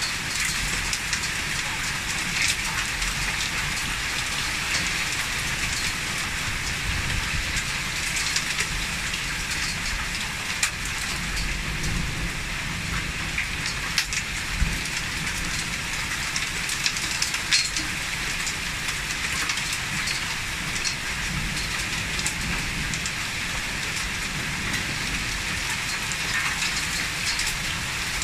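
Heavy thunderstorm rain falling steadily, with frequent sharp clicks of drops striking nearby surfaces.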